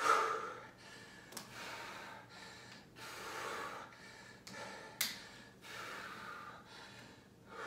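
A man breathing hard through a set of resistance-band biceps curls: a string of heavy breaths in and out, a little over a second apart, the sharpest right at the start and about five seconds in.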